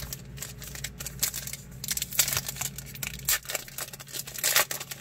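Foil trading-card pack being torn open and crinkled by hand, a run of irregular crackling rustles that swell twice, about two seconds in and near the end.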